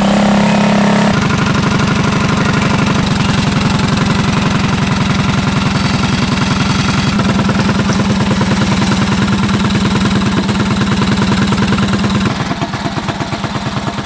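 A custom minibike's air-cooled engine running on the stand, held at a fast speed with rapid, even firing, then dropping back to a slower idle about two seconds before the end.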